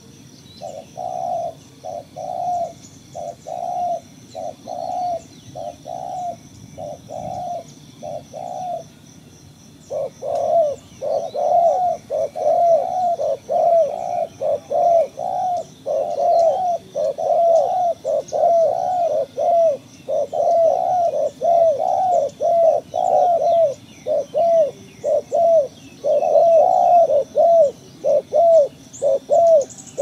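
Doves cooing: short rounded notes repeated about two a second, breaking off briefly about nine seconds in, then coming back faster and louder.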